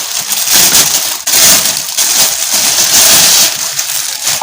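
Plastic packaging crinkling and rustling loudly close to the microphone as a parcel is handled and opened; it stops abruptly near the end.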